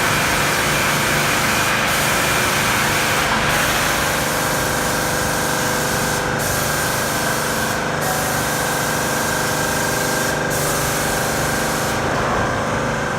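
Airless paint or wall-putty sprayer running: a steady motor and pump hum under a continuous hiss of spray, the hiss dipping briefly several times.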